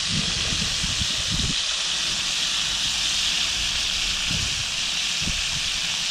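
Walleye frying in hot oil, with a steady sizzle.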